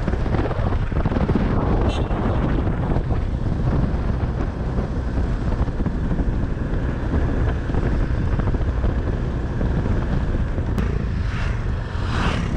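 Motorcycle running along a road at speed, with wind rushing over the camera microphone.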